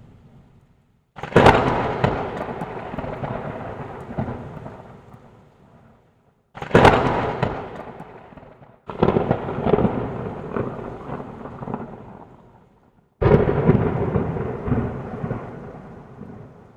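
Thunder cracking four times, each clap starting suddenly and rumbling away over a few seconds.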